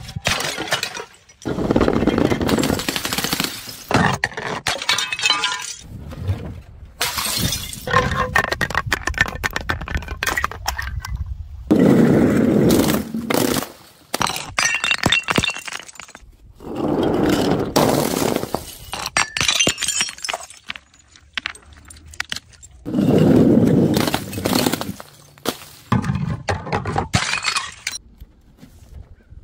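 Glass bottles filled with coloured liquid smashing on stone steps one after another. There are about half a dozen separate crashes, each followed by clinking, scattering shards and a spill of liquid.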